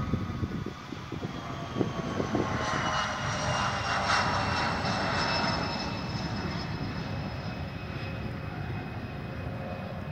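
Bombardier CRJ-200 regional jet climbing out after takeoff: its twin turbofans whine in several steady tones that slowly fall in pitch as it moves away. A rush of jet noise swells about two seconds in, is loudest around four seconds, then eases.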